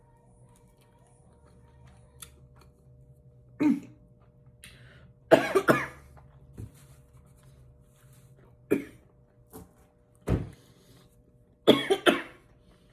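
A person coughing in several short bouts, some as single coughs and some as quick clusters, typical of the throat burn from eating spicy tteokbokki sauce.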